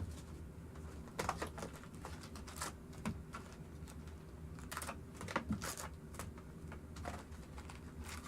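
Scattered light clicks and taps at an irregular pace, a few a second at most, over a low steady hum.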